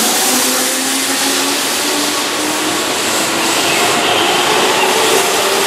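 Keihan electric train pulling along the platform and gathering speed: the traction motors whine, rising steadily in pitch, over a constant rush of wheel and rail noise.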